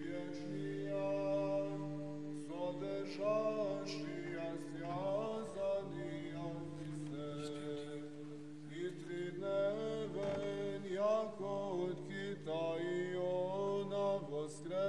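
Background music: Orthodox church chant, voices singing a slow melody over a steady held drone note.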